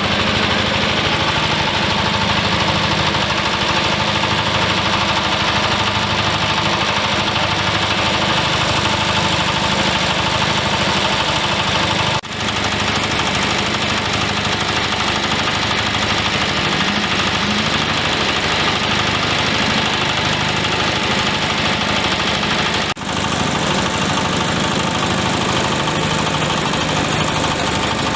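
Engine-driven grass chopper and husk milling machine running steadily, a loud, dense mechanical din. The sound dips sharply for an instant twice, about twelve and twenty-three seconds in.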